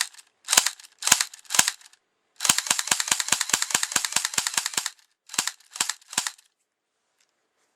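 Walther P99 electric blowback airsoft pistol shooting. There are three single shots, then a rapid burst of about seven or eight shots a second lasting about two and a half seconds, then three more single shots.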